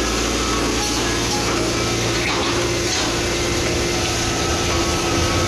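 Hitachi ZAX 110M excavator's diesel engine running steadily under working load, with a steady whine above the engine note and a few faint knocks in the middle.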